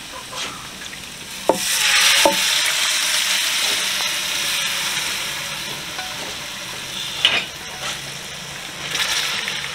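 Masala sizzling as it fries in a pan while being stirred. The sizzle swells about a second and a half in and slowly eases off, with two sharp ringing clinks early on and a few fainter ones later.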